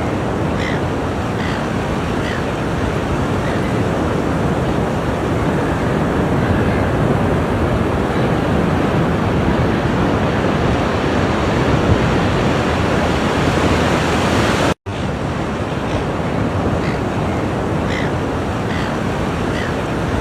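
Ocean surf: a steady wash of waves breaking on the shore. It cuts out for a split second about three-quarters of the way through, then resumes.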